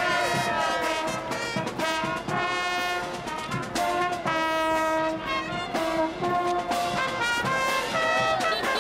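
Marching brass band playing a tune, trumpets and trombones holding long notes.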